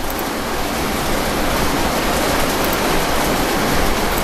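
Steady, loud hiss of background noise. It swells over the first second, then holds even, with no tone, rhythm or clicks in it.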